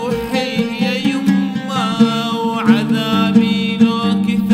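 Oud being plucked in an instrumental passage of an Arabic song, under a higher melody that slides and wavers, with one sharp upward slide about two and a half seconds in.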